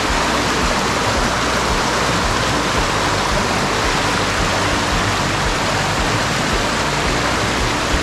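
Fast-flowing stream rushing steadily: a loud, even wash of moving water.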